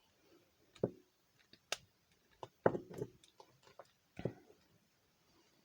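Scattered metallic clicks and knocks as a drilled-out Master Lock No. 5 padlock is handled and worked in an attempt to open it, about five separate knocks with the sharpest near the middle.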